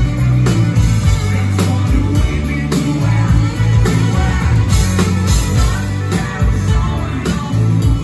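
Live rock band playing a song at full volume: drum kit keeping a steady beat under electric guitars, bass and keyboard.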